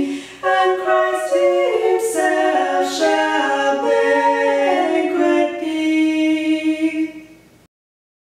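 Two women's voices singing a hymn together unaccompanied, the closing phrase ending on a long held note, then cutting off to silence near the end.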